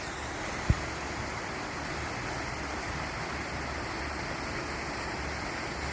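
Rushing river water, a steady even rush, with one brief low thump under a second in.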